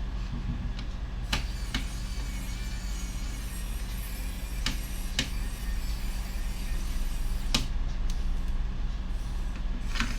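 Sharp clicks and taps of small screws and a screwdriver on a laptop's plastic case as its cover is screwed back on, about half a dozen in all, over a steady low hum.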